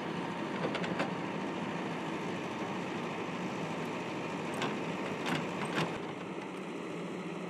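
Backhoe loader's diesel engine running steadily as its rear bucket pushes earth. A few short knocks or clatters come about a second in, and three more between four and a half and six seconds.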